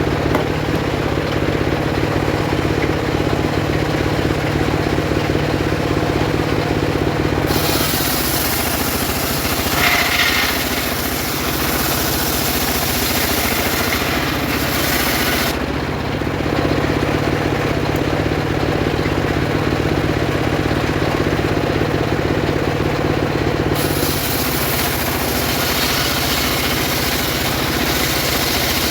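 Homemade circular saw rig running with a steady engine drone. Twice the blade rips lengthwise through sengon wood, each time adding a loud hiss of cutting that lasts several seconds: once about a quarter of the way in and again near the end.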